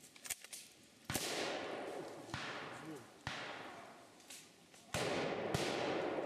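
Blank-fire rifle shots at a WWII reenactment battle: five sharp cracks at uneven spacing over about five seconds, each trailing off in a long echo.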